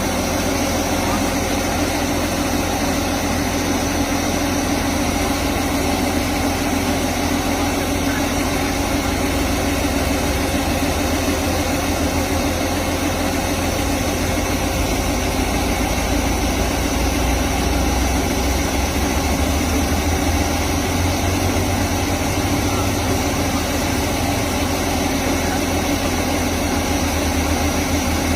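A rice combine harvester running steadily: a constant engine drone with a low hum that does not change.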